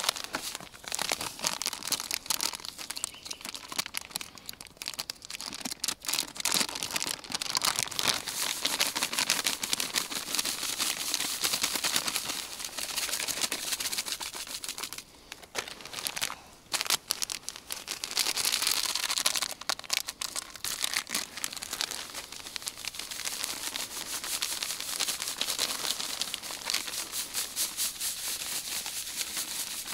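Plastic bags of dry Vabik bream groundbait crinkling and rustling as they are handled and emptied, and the dry groundbait rustling as it is poured and mixed by hand, with a couple of brief pauses.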